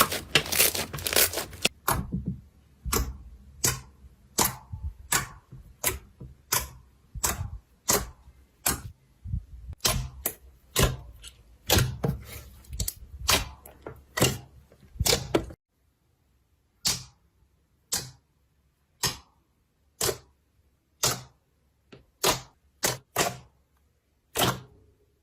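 Slime being pressed and poked, giving a series of sharp clicking pops, about one or two a second; in the later part each pop stands alone with silence between.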